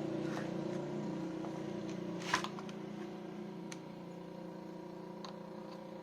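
A steady low hum at a fixed pitch, slowly fading, with a few light clicks of handling and one sharper click about two seconds in.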